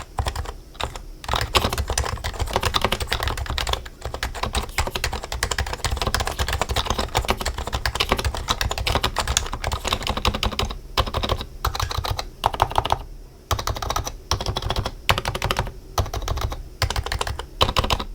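Typing on a Happy Hacking Keyboard with Topre electrostatic capacitive switches: fast, continuous keystrokes broken by short pauses now and then.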